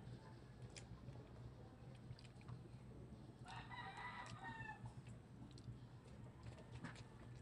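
Near silence with a low steady hum and faint clicks of eating by hand. A rooster crows once, faintly, about three and a half seconds in; the crow lasts a little over a second and drops in pitch at the end.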